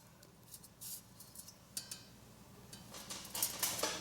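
Light clinks and taps of small stainless steel stove parts being handled, a few around one second in and more in a cluster near the end.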